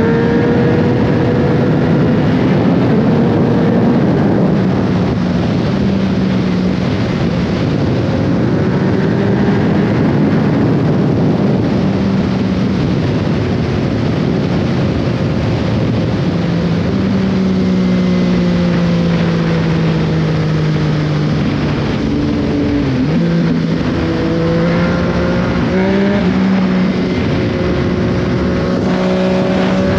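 Yamaha Tracer 900GT's three-cylinder engine through an Akrapovic exhaust, under way: the note climbs under acceleration at the start, holds steady through the middle, dips sharply about three-quarters through, then climbs again near the end. A constant rush of wind and road noise runs under it.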